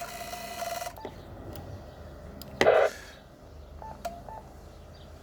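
Amateur radio transceiver tones: a steady tone cuts off about a second in, a brief louder burst of noise comes about halfway through, and a few short button beeps follow.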